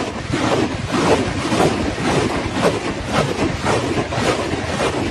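Multiple rocket launcher ripple-firing a salvo: rockets launching one after another with a sharp blast and whoosh, about two a second, over a constant rushing noise.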